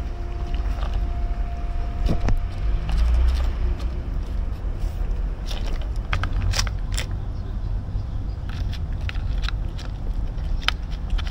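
Steady low rumble of outdoor street background, with scattered sharp clicks and taps, the clearest a few seconds past the middle.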